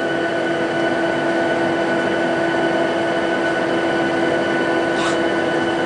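Steady cabin noise inside a Boeing 737-700 Business Jet: an even rushing of air with a constant low hum and fainter higher tones. A brief soft sound comes about five seconds in.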